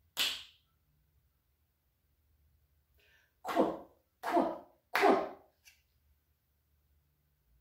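A single finger snap, then a woman says the /kw/ sound of the letters 'qu' three times in quick, forceful bursts, as a phonics letter-sound drill.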